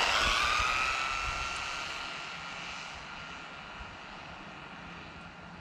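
Electric motor and drivetrain of an RC drift truck whining at its top speed of about 20 mph. The high whine rises slightly at first, then holds its pitch and fades over about three seconds as the truck runs off into the distance.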